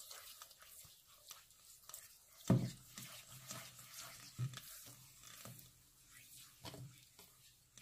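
Silicone spatula stirring a grainy mix of melted butter and sugar in a stainless steel bowl, with faint wet scraping and swishing against the metal. A few dull knocks break in, the loudest about two and a half seconds in.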